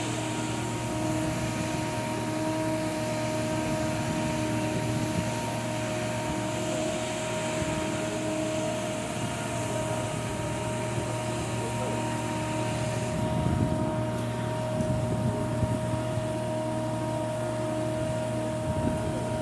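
A 300-ton travelift's engine and hydraulics running steadily: a constant low hum with a steady high-pitched whine over it. The upper hiss drops off about two-thirds of the way through.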